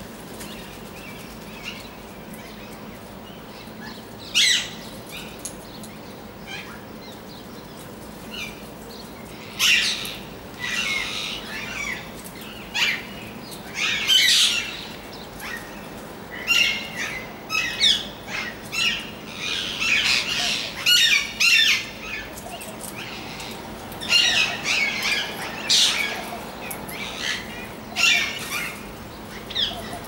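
Rose-ringed parakeets screeching in short, sharp squawks. The calls are sparse at first, then come thick and fast from about ten seconds in as the flock calls together.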